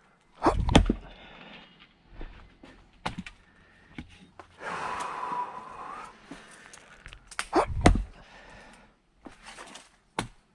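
Firewood being split by hand: two heavy blows on a log about seven seconds apart, each a quick double knock, with a few lighter knocks of wood between. Heavy breathing from the exertion sounds in the middle.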